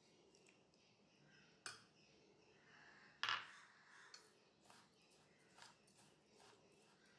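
Faint clinks and scrapes of a metal spoon against a stainless steel bowl while stirring a crumbly semolina mixture, with two sharper clinks about 1.7 and 3.3 seconds in, the second the loudest, and lighter ticks after.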